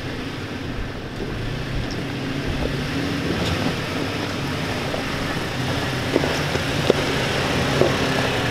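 Toyota Tacoma pickup crawling over a loose rocky trail and passing close by: a steady low engine hum that grows louder as it nears, with tyres crunching over the stones and a few sharp clicks of rocks knocked under the wheels in the second half.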